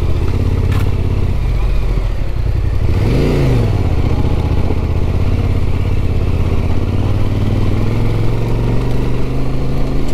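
Motorcycle engine running steadily while riding. About three seconds in, its pitch briefly rises and falls.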